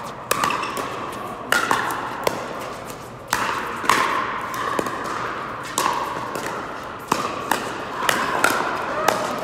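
Pickleball paddles hitting a plastic ball in a rally: sharp pops at irregular intervals, coming quicker in the last couple of seconds. Each pop rings on briefly in a large indoor hall.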